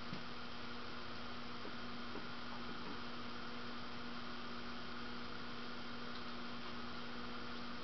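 1985 Envirofan Gold Line 56-inch industrial ceiling fan running on its low speed: a steady electric motor hum with one clear, unchanging tone.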